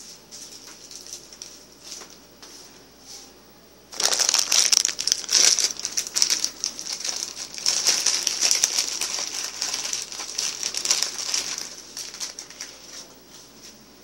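Dense crinkling, crackling noise made of many fine clicks. It starts suddenly about four seconds in and fades after about eight seconds, with fainter scattered clicks before it.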